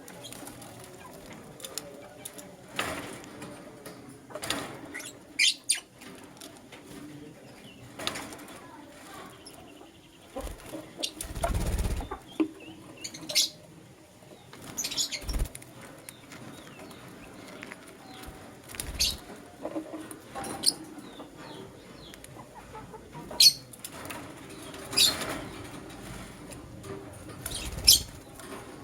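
Lutino lovebirds giving short, sharp, high chirps, scattered singly and in pairs, with a louder rustling burst around twelve seconds in.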